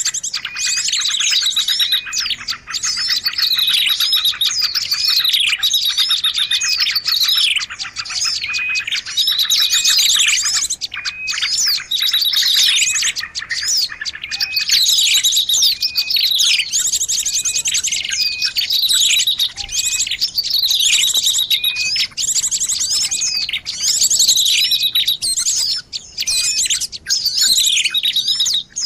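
Small songbirds chirping and trilling in a dense, unbroken chorus of many overlapping calls: quick downward-sweeping notes and rapid high trills, a bird-lure recording meant to draw small birds in.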